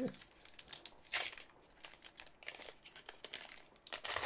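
Irregular crinkling and rustling of foil trading-card pack wrappers and cards being handled, with sharper crinkles about a second in and near the end.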